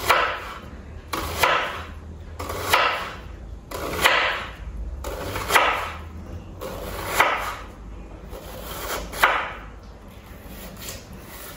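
Kitchen knife slicing through a white onion and knocking on a wooden cutting board, one stroke every second or two, as the onion is cut into half-moon slices.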